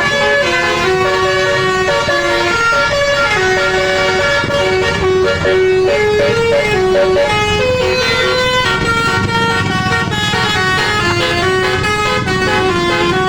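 Bus "telolet" musical air horn playing a rapid melody: several horn tones sound together and switch pitch in quick succession without a break. A low rumble runs underneath.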